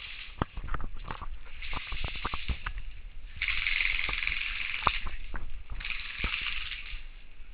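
Airsoft gunfire during close-quarters play: scattered, irregular sharp pops and clicks, with several hissing stretches about a second long, the loudest beginning about three and a half seconds in.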